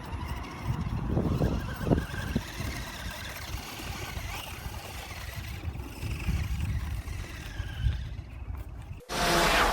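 Brushless electric motor of a 1:10 scale RC monster truck whining faintly as it drives, its pitch wavering up and down over a low rumble of wind and ground noise. Music starts abruptly near the end.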